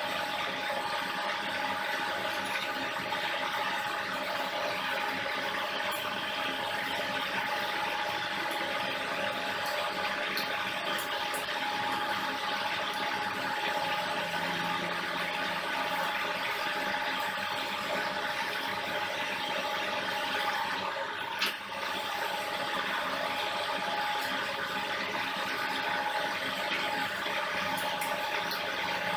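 Belt-driven rig of an electric motor, gearbox and two generators running steadily, a constant mechanical whir with a steady high whine through it. A brief click and dip about 21 seconds in.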